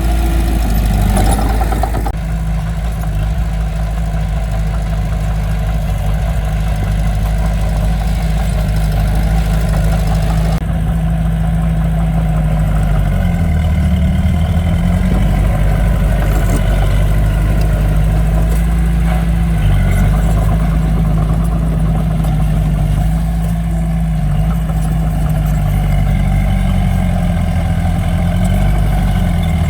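Diesel engine of heavy earthmoving equipment running steadily at a low, even pitch. Its speed dips and rises briefly about halfway through and again near the end.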